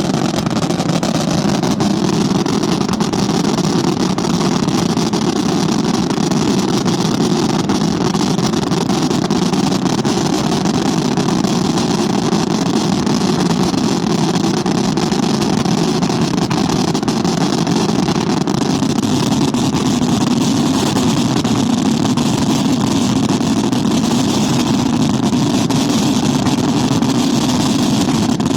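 Italian fireworks finale barrage (scarica): shell bursts and salutes fired so fast that they merge into one unbroken rumble with no pauses between reports.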